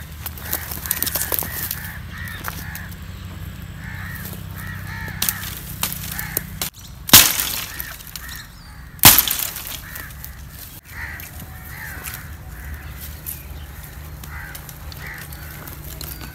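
Two sharp cracks of wood breaking, the loudest sounds, about seven and nine seconds in, over birds calling again and again and a low steady hum.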